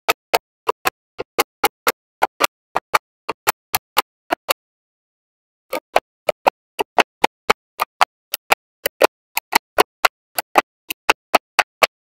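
Small magnetic balls clicking sharply into place, one crisp click after another at about four a second, with a pause of about a second near the middle.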